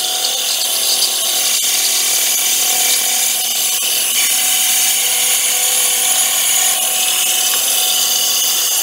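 A 14-inch bandsaw running steadily, its blade cutting straight through a board.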